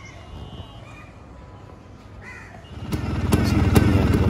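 1979 Vespa 150 Super's two-stroke single-cylinder engine starting about three seconds in and then running steadily. A few bird calls are heard before it.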